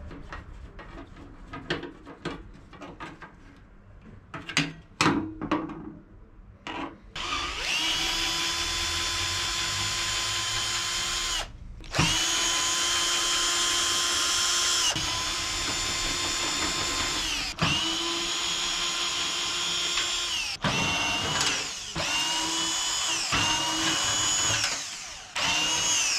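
Light clicks and metal knocks from a hand screwdriver and loose screws, then a cordless drill-driver backing screws out of the saw's metal table top. The driver runs at a steady pitch in a string of bursts a few seconds long, stopping and starting about eight times.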